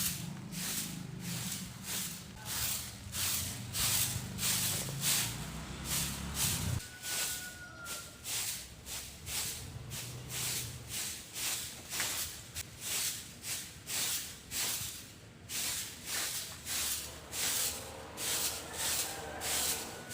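Broom sweeping the yard in steady swishing strokes, about two to three a second. A low hum underneath cuts off about seven seconds in.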